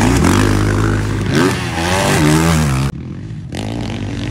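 Dirt bike engine revving up and down repeatedly on a motocross track. About three seconds in the sound drops off abruptly, leaving a fainter engine running.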